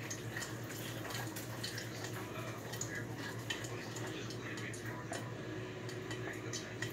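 Hot frying oil crackling, with many small irregular pops over a steady low hum.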